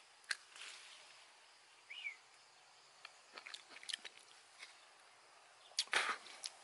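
Quiet outdoor stillness broken by scattered light clicks and rustles, with a single short bird chirp about two seconds in. A louder rustle comes near the end.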